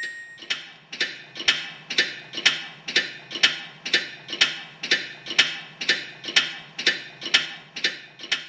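An edited-in ticking sound effect: a steady run of evenly spaced ticks, about two a second, each with a short ring.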